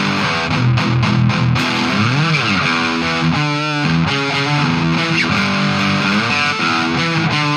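Electric guitar, a Chinese Gibson Flying V replica fitted with Ibanez QM1/QM2 humbuckers, playing a lead line. About two seconds in, a note is bent up and back down, and a wide vibrato follows a little later.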